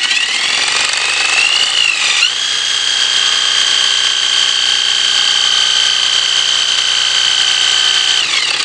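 Impact driver spinning a Lucas 15AC alternator on a bench test. Its high motor whine rises as it spins up, dips briefly about two seconds in, then holds steady before falling away near the end. The alternator is turning fast enough to charge: the warning lamp is out and the voltage is up to about 13.5 V.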